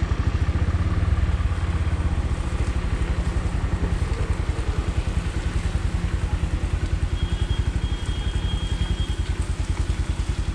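Vehicle engine running steadily under way, with an even low pulse.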